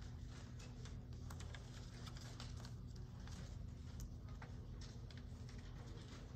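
Paper being folded and cut by hand: light, irregular clicks and rustles over a steady low room hum.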